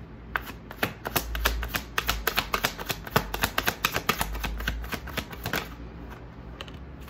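A tarot deck being shuffled by hand: a rapid run of sharp card clicks and flicks for about five seconds, stopping a little before the end.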